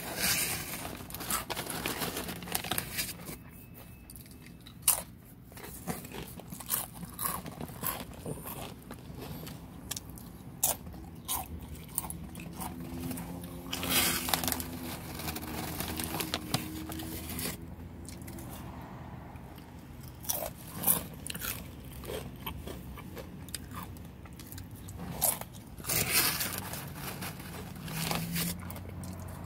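Tortilla chips being bitten and chewed close to the microphone: irregular loud crunches with quieter chewing between them.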